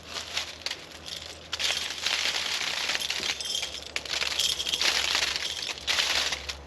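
Irregular crunching and rustling, heaviest from about a second and a half in until near the end.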